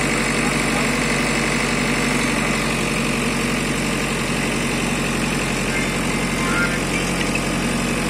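JCB backhoe loader's diesel engine idling steadily.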